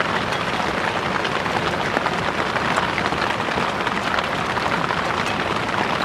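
Steady rain falling: an even hiss of many small drops.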